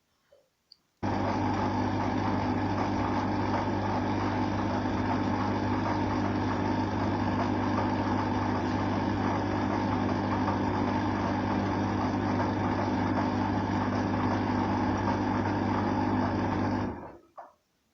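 A machine running steadily with an even hum, switched on abruptly about a second in and cutting off about a second before the end.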